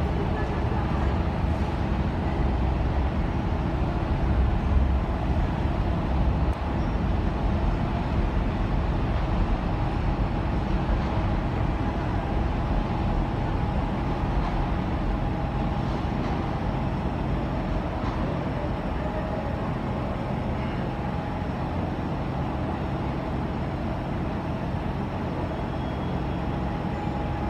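Docklands Light Railway B2K-stock train running steadily, a continuous rumble of wheels on rail with a faint held motor tone.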